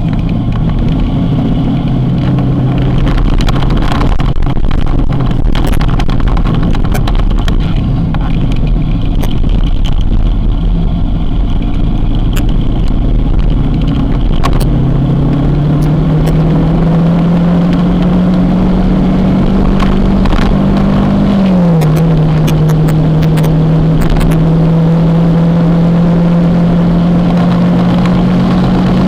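Kawasaki motorcycle engine running on the move, with a steady rumble of wind on the microphone. About halfway through the engine note climbs gradually as the bike speeds up. It drops suddenly at a gear change, then holds steady.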